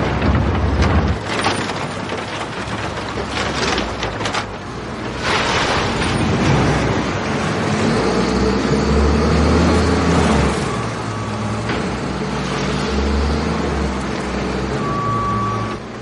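A heavy diesel loader is working, its engine revving up and down as the bucket shoves through a pile of rubbish, with scraping and clattering from the waste. A short beep sounds near the end.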